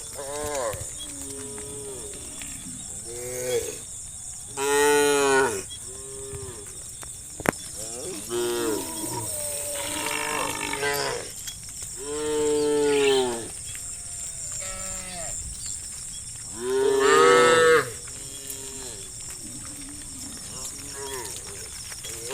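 Cows in a herd mooing, one call after another with some overlapping, mostly short and quieter, with three loud long moos: one a few seconds in, one just past the middle and one in the last quarter.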